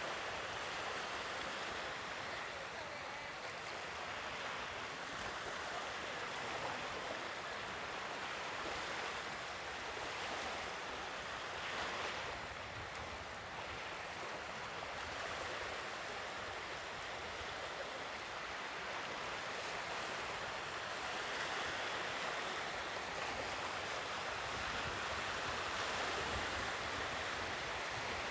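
Ocean waves washing onto the shore in a steady hiss of surf, swelling and easing gently as waves come in.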